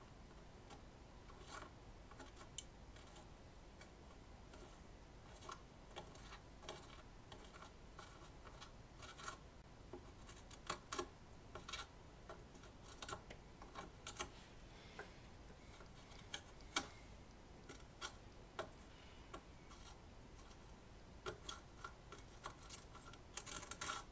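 Faint, irregular small clicks and scrapes of a soldering iron tip working a speaker's solder terminal while desoldering the remains of old wires.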